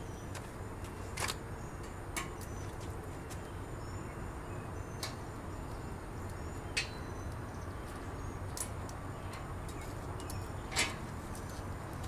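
Plastic zip ties being snipped with cutters one after another: sharp single clicks every second or two.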